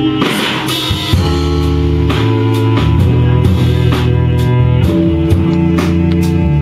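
Live music from a cello and a drum kit, the drums coming in with a cymbal crash just after the start and then keeping a steady beat under sustained low cello notes.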